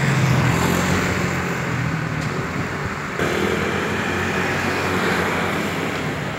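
Street traffic: a vehicle engine running close by for the first three seconds, then an abrupt cut to steadier road noise with a motor scooter passing.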